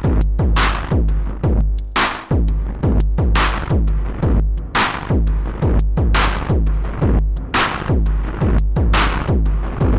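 Electronic drum loop run through a Noise of Antimatter Subshaper eurorack subharmonic generator and waveshaper module. Deep kicks land about twice a second under snare-like hits with long reverb tails, the wet effect signal shaped by the module and mixed back in with the dry drums.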